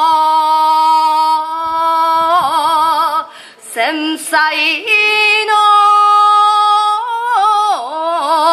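A woman's voice chanting shigin, the classical poem recitation that accompanies kenbu sword dancing, holding long notes and breaking into wavering ornaments that bend up and down in pitch. There is a short break about three seconds in.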